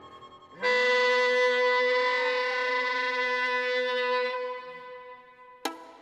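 Contemporary chamber music for soprano saxophone, violin and piano. A chord dies away, then a loud long-held chord comes in about half a second in, with a downward glide sounding within it. It fades out, and a sharp struck chord cuts in near the end.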